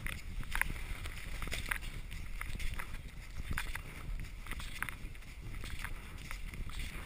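Handling noise on an action camera's microphone: a low rumble with irregular short scratchy clicks, something rubbing against the covered camera.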